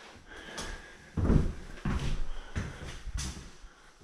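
Footsteps on a bare floor: four thuds, a little more than half a second apart, starting about a second in.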